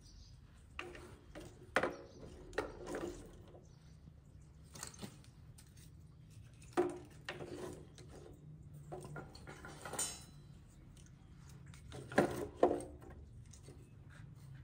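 Irregular knocks and clatter of objects being handled, about a dozen short impacts spread a second or more apart, some with a brief ringing tone.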